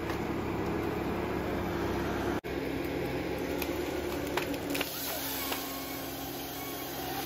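Heavy machine engine running steadily, cut off abruptly about two and a half seconds in and resuming with a slightly different pitch.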